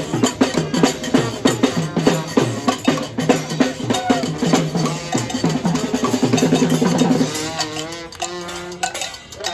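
Brass band playing with percussion: busy horn lines over steady drum and percussion strikes. About seven seconds in, the drumming thins out and the horns hold long notes.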